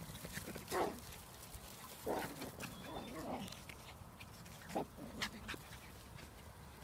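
A dog making a few short whines that slide up and down in pitch: one about a second in, a run of them from about two to three and a half seconds, and one near five seconds.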